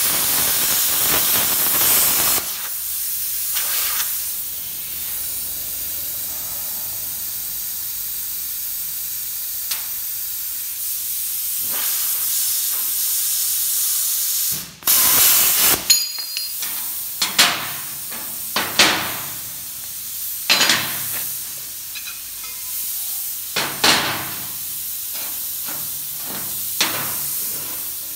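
Handheld plasma cutter cutting through steel sheet with a loud hiss for about two seconds, then a steadier, quieter hiss. A second short loud burst of hiss comes about halfway through, followed by scattered knocks and clinks of metal.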